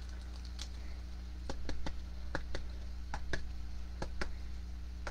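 A dozen or so light, sharp clicks and taps at an irregular pace, over a steady low electrical hum.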